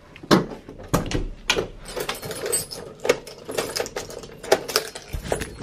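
Metal apartment front door being unlocked from inside: a run of sharp, irregular clicks and rattles from the lock mechanism and lever handle, with a heavier clunk near the end.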